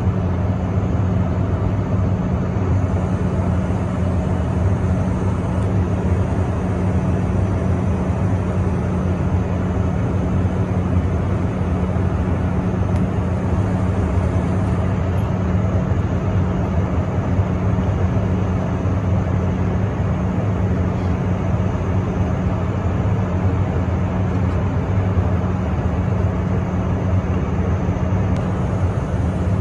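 Steady cabin noise of a private jet in cruise flight: an even rush of air with a constant low hum underneath.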